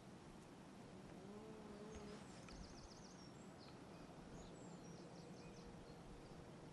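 Faint outdoor quiet with a steady hiss, through which a small songbird sings two short, high, rapid trills a couple of seconds apart, with a few scattered chirps.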